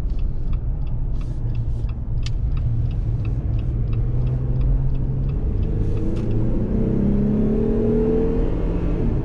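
2018 Jeep Wrangler JL Moab on BF Goodrich mud-terrain tires driving along the road: a steady tire and road drone, with the engine note rising as it accelerates through the 8-speed automatic in the second half. A light, rapid ticking runs through the first half.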